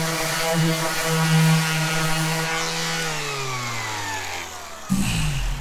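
Ryobi random orbital sander running on primed shiplap with a steady hum, then switched off about three seconds in, its pitch falling as the motor winds down. A low thump follows near the end.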